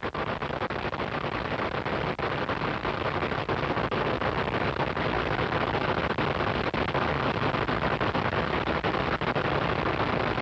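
Top fuel dragster's supercharged nitromethane V8 idling loudly, a rough run with rapid, uneven popping.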